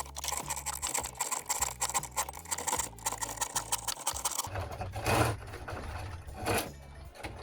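Homemade chainsaw being test-run: a fast, even mechanical rattle for about four and a half seconds, then a few short rough bursts.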